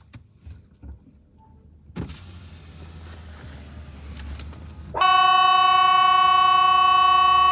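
Swedish outdoor public warning siren ('Hesa Fredrik') sounding its test signal. It comes in suddenly about five seconds in and holds one loud, steady, horn-like tone. Before it there is only faint low background noise, with a thump about two seconds in.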